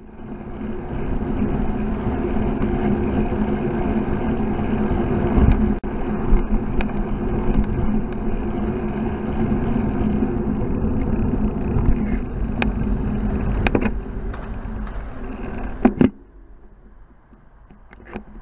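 Wind and road noise picked up by a bicycle-mounted camera while riding, with a steady low hum and a few sharp knocks. The noise drops away abruptly near the end as the bike comes to a stop.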